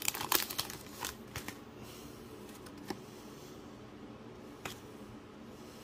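Foil booster pack wrapper crinkling as the trading cards are slid out, then a quieter stretch of card handling with a couple of single soft clicks.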